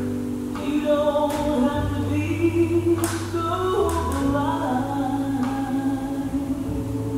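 Slow background music with singing voices, long held notes over a steady bass.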